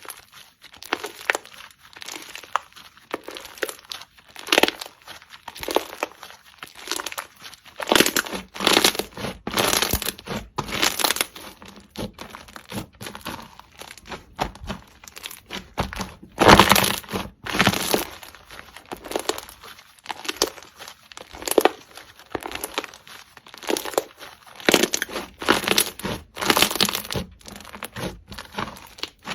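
Slime being squished and pressed by hand, giving irregular crackling, crunchy pops, the loudest a little past halfway.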